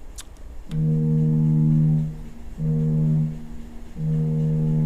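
Deep ship's whistle from a Great Lakes whistle-signal exhibit sounding a signal of three steady blasts: a long one about a second in, a short one, then another long one.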